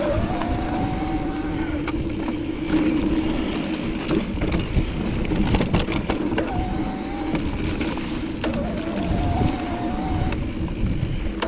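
Santa Cruz Heckler electric mountain bike's motor whining as the bike is ridden on a trail. It gives a steady hum, with a higher wavering whine that comes and goes, over rumbling wind on the microphone and scattered rattles and clicks from the trail.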